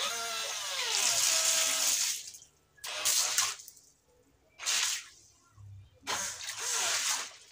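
A 12 V D775 DC motor driving a homemade impeller water pump, with its whine and water spraying and splashing. It runs for about two seconds, its pitch falling as it slows, then comes on in three short bursts as it is switched on and off from the battery.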